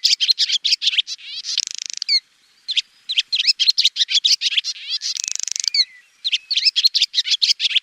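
Swallow singing: quick runs of high twittering chirps, each phrase ending in a dense buzzy rattle. There are three phrases with short pauses between them, about two and six seconds in.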